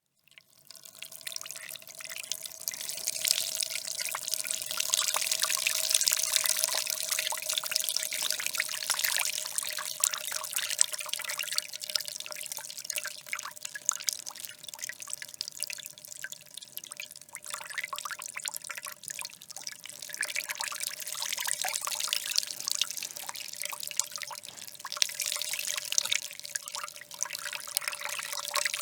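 A light stream of water pouring and splashing in a steady trickle with many small spatters. It fades in over the first second, is strongest around four to eight seconds in, eases off in the middle and picks up again later.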